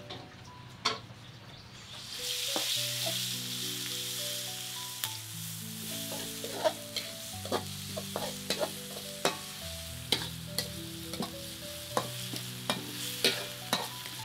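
Sambal frying in a wok, a steady sizzle from about two seconds in, with a metal spatula scraping and clicking against the pan many times as it is stirred.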